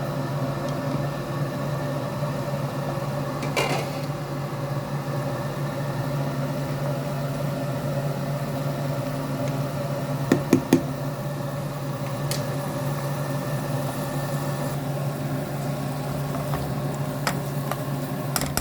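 A steady motor hum with a few sharp clinks and knocks of a utensil on the pan, the loudest a quick cluster about ten seconds in.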